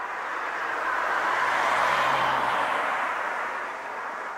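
A vehicle driving past: its noise swells up, is loudest about two seconds in with a faint engine hum, then fades away.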